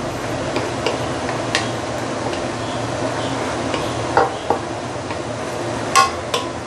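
Sweet potato leaves stir-frying in a stainless steel wok: a steady sizzle while a wooden spatula stirs and tosses them, with a few sharp knocks of the spatula against the wok, the loudest about six seconds in.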